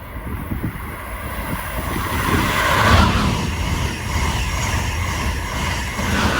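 A train passing: a steady rumble and the noise of wheels on rails, growing louder to a peak about three seconds in and staying loud.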